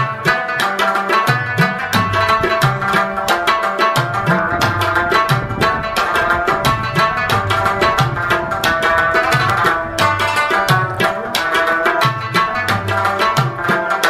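Instrumental background music: fast, steady hand-drum strokes with deep bass notes that slide up in pitch, under a sustained melodic line.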